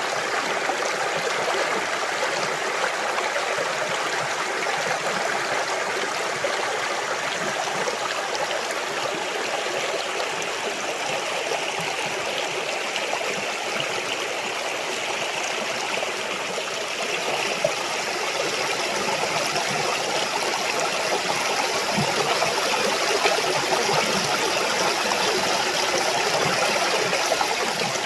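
Creek water running steadily over rocks, an even rush that gets a little louder near the end.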